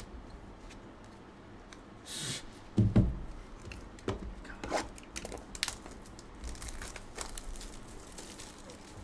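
A sealed cardboard trading-card hobby box knocks twice as it is lifted off a stack, then its plastic shrink wrap is torn open and crinkled.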